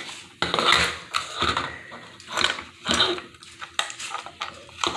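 Coloured aquarium gravel rattling and scraping in irregular bursts as a hand pushes it around to level it in a small plastic fish tank.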